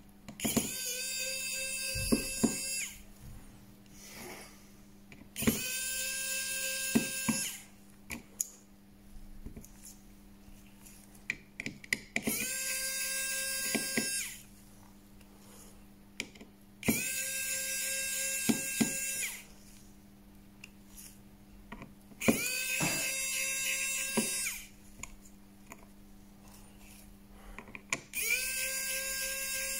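A small handheld electric tool motor runs in six bursts of about two seconds each, every five to six seconds. Each burst spins up to a steady high whine, with light clicks around it, as in precision work on a smartphone.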